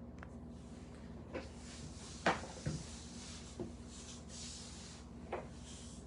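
A few scattered knocks and clicks, the loudest about two seconds in, over a steady low electrical hum.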